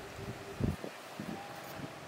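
Outdoor ambience of rustling and wind buffeting the microphone, with a few short low thumps, the loudest about two-thirds of a second in, over a faint steady hum.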